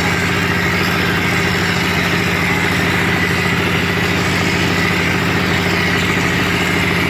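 Wall plastering machine's motor running steadily, an even, unchanging hum.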